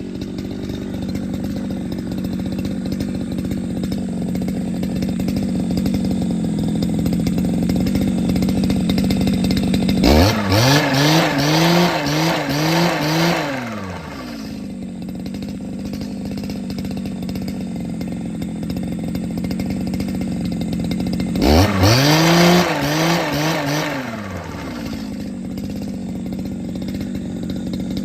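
A small engine or motor running steadily, revving up sharply twice for a few seconds each, its pitch wavering while revved before dropping back.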